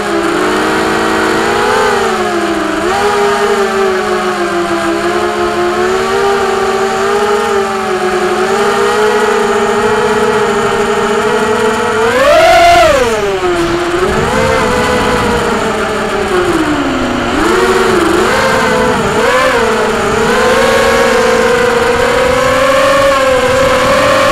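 Quadcopter's four brushless motors (Cobra 2204 1960kv) spinning 5-inch props, a buzzing whine whose pitch follows the throttle. It swells to a sharp high punch about halfway through, drops back, wavers up and down a few times and climbs again near the end.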